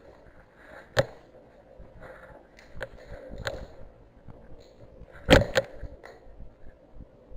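Scattered sharp cracks and knocks, the loudest a close pair about five seconds in, with softer scuffing between them.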